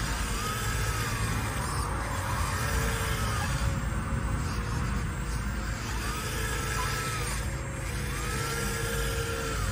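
Radio-controlled hydraulic excavator, a long-boom Caterpillar-style scale model, running: a steady low hum from its hydraulic pump, with a whine that rises and falls about four times as the boom, arm and bucket are worked.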